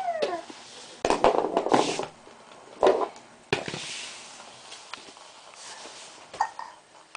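Plastic toy maraca shaken and knocked about in short rattling bursts, the longest about a second in and another near three seconds, with a few single clicks later. A brief gliding squeal from the baby at the very start.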